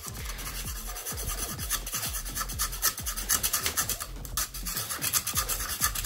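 Screwdriver tip scraping at a hardened, fired microwave-absorbing paint coating inside a terracotta clay pot, a quick run of short gritty scratching strokes.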